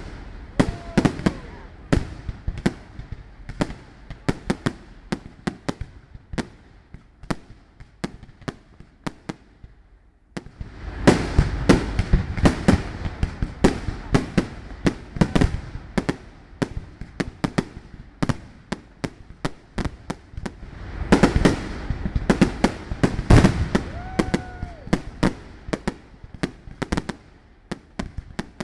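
Fireworks display: a rapid run of sharp bangs and crackling from aerial shells and comets. It thins out about ten seconds in, then two louder volleys follow.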